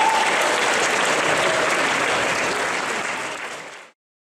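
Audience applauding after a performance; the clapping is cut off abruptly near the end.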